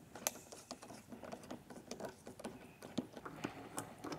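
Screwdriver loosening the screw of a hose clamp on a corrugated hose: faint, irregular clicks and ticks.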